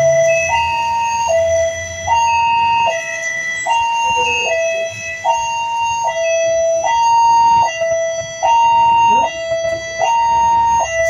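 Railway level-crossing warning alarm sounding a steady two-tone high-low alternation, each tone about eight-tenths of a second, while the crossing barriers are down: the signal that a train is approaching. A low rumble of passing road traffic sits under it in the first few seconds.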